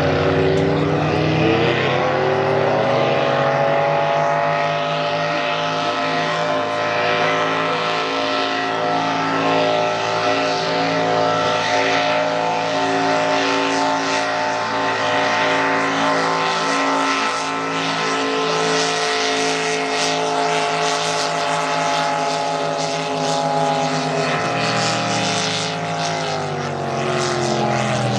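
Racing lobster boats' inboard engines running flat out, a loud steady multi-toned drone. It climbs in pitch in the first couple of seconds, holds, then drops in pitch a few seconds before the end.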